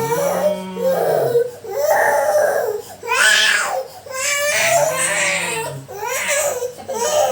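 A small child crying in a run of high, wavering wails, each about a second long with short catches of breath between, in distress at being massaged.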